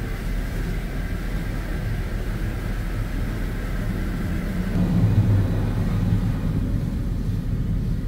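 Automatic car wash machinery running, heard from inside the car's closed cabin as a steady low rumble. It swells louder about five seconds in.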